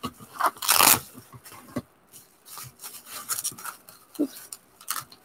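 Bubble-wrap packaging crinkling and rustling as hands pull it open, in irregular crackly bursts, loudest a little under a second in.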